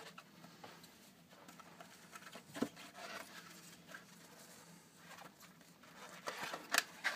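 Fingers picking and scratching faintly at the seal of a cardboard trading-card box, with a sharp click about two and a half seconds in and a few louder scrapes and tears near the end as the box starts to come open.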